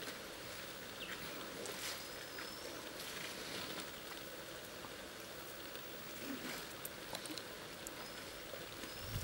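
Quiet outdoor ambience at a waterhole where elephants are drinking: a steady hiss with scattered faint drips and splashes of water and a few short, high chirps.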